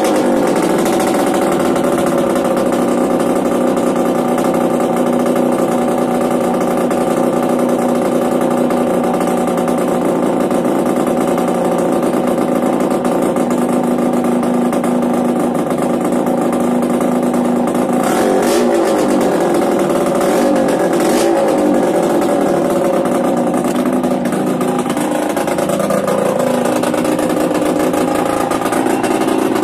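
Yamaha DTR 125 single-cylinder two-stroke engine, fitted with an aftermarket Big One exhaust, running steadily and loud. Its pitch wavers briefly about 18 and 21 seconds in and again near 25 seconds as engine speed rises and falls.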